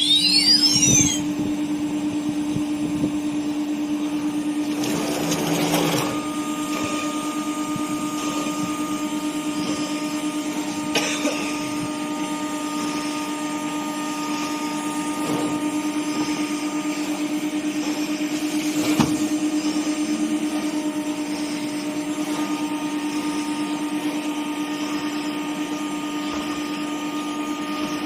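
Spindle of an automatic-tool-change CNC nesting router running with a steady whine, after a rising spin-up that ends about a second in. A few brief knocks and a short noisier stretch around five to six seconds in.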